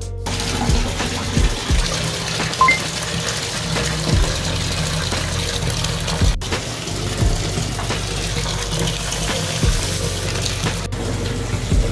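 Bathtub tap running, a steady stream of water pouring into a filling tub of foamy bath water. Soft background music with a low beat plays underneath.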